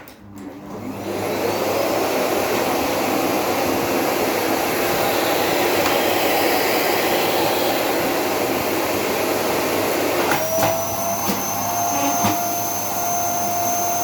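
Philips 7000 series vacuum cleaner switched on with a click, its motor spinning up over about a second and a half and then running steadily. About ten seconds in the sound changes: a steady whistling tone sets in, with a few knocks.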